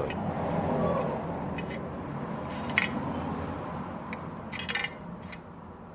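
A steady rushing hiss that eases off toward the end, with a few light clicks and taps of small tools.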